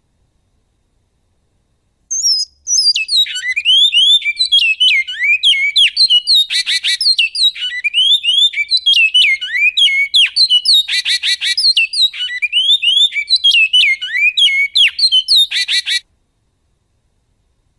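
Great-billed seed finch (bicudo) singing its song in the 'canto goiano' style: a long, fast run of sweeping, descending whistled notes with a few short buzzy trills mixed in. The song starts about two seconds in and cuts off suddenly near the end.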